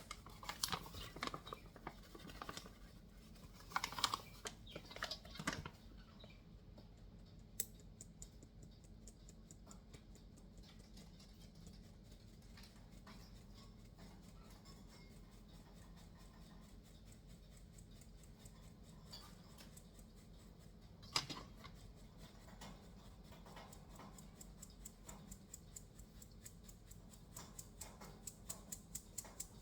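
Flour being sifted: a flour sifter clicking faintly in a rapid, even run, after a few knocks in the first seconds and with one louder knock a little past the middle.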